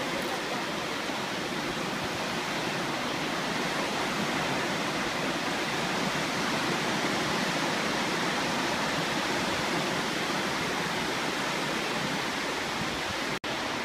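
Steady wash of surf breaking on the beach, an even rushing noise with no distinct waves standing out; it cuts out for an instant near the end.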